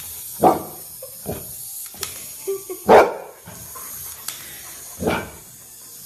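Golden retriever barking in play: three loud barks about two seconds apart, the middle one loudest, with a few softer sounds between.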